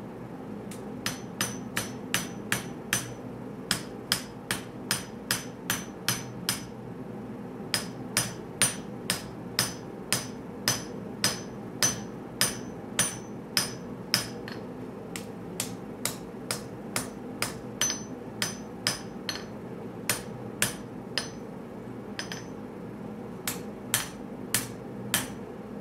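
Hammer blows on a handled forging top tool set against a red-hot Damascus blade on the anvil, about two strikes a second in runs with brief pauses, each with a bright steel-on-steel ring. A steady low hum runs underneath.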